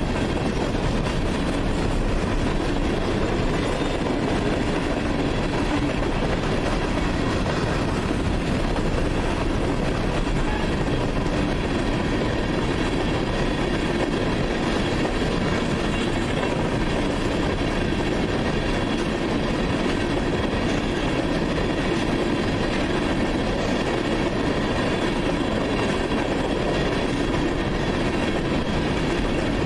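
CSX freight train's open-top hopper cars rolling past: a steady, unbroken noise of steel wheels on rail.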